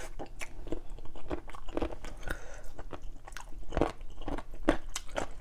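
Close-up chewing of braised chicken drumstick, with irregular crunches as the soft, slow-cooked chicken bones break between the teeth.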